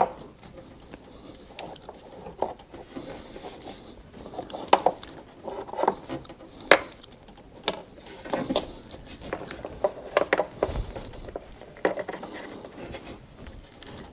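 Irregular crackling and clicking as tape is stretched and wrapped tightly around a crimped wire connector by hand.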